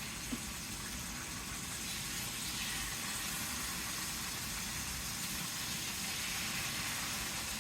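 Quarter-inch pork slices sizzling steadily in a hot skillet.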